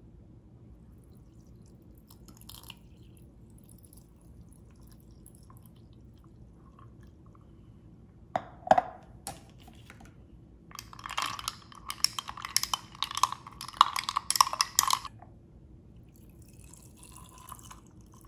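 Milk tea poured from a glass pitcher over ice cubes and tapioca pearls in a glass tumbler: a couple of sharp glass clinks a little past the middle, then a few seconds of rapid crackling clicks as the liquid runs over the ice.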